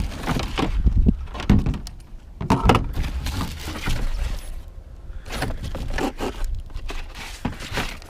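Handling noise from a cardboard video game box and its contents: irregular knocks, thuds and paper rustling as it is turned over and looked through, over a steady low rumble of wind on the microphone.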